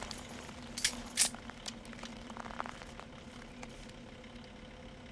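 A steady low hum with a few small metallic clicks and rattles, two sharper ones about a second in: a firing squad's rifles being raised and aimed in the tense pause before the volley.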